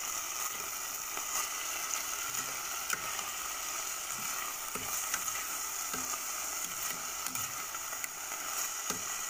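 Chicken pieces with onion and garlic sizzling in hot oil in a pot, a steady hiss, with scattered scrapes and taps of a spatula against the pot as they are stirred.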